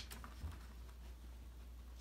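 Quiet moment of puppies moving about a play pen, over a low steady hum: a soft thump about half a second in and a few faint taps.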